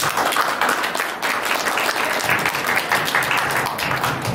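Audience applauding, a dense, fast clatter of many hands clapping.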